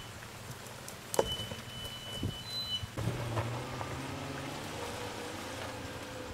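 Off-road 4x4 SUV climbing a steep dirt track. Its engine comes in under load from about three seconds in and holds a steady low note, over a scattered crackle of stones and dirt under the tyres. A sharp knock about a second in is the loudest sound.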